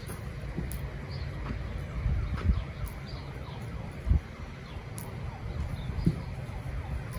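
A horse eating hay from a feeder box, with dull low thumps a few times, the loudest about four seconds in. A bird calls faintly about once a second.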